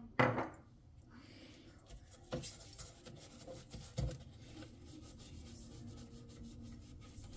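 Soft paintbrush scrubbing a wet antenna tuner's circuit board and chassis with dish-detergent suds, a light scratchy rubbing. A sharp knock comes just after the start, and lighter knocks come about two and four seconds in.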